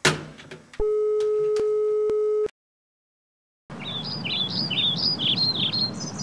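A wall telephone's handset is hung up with a sharp clack, and a steady telephone tone sounds for under two seconds before cutting off abruptly. After a second of silence, small birds chirp in a quick run of rising and falling notes over steady outdoor background noise.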